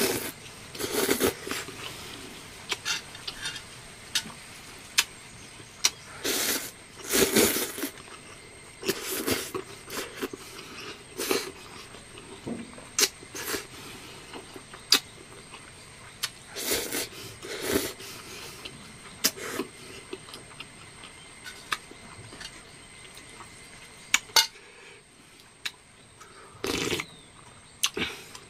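A person eating instant noodles: short, noisy slurps of noodles and broth every second or two, with a few light clicks in between.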